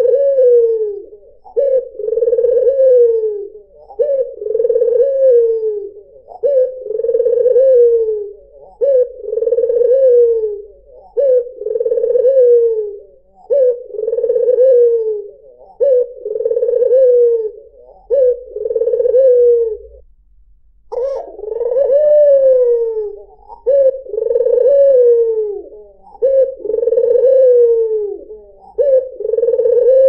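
White (albino) domestic collared dove, the Indonesian puter putih, cooing over and over in steady phrases about a second and a half apart, each ending on a falling note. There is a short pause about two-thirds of the way through, and then it resumes a little louder.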